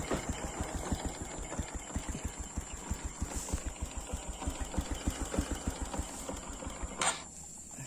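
Small motorcycle engine running at low speed with an even, rapid putter, cut off about seven seconds in.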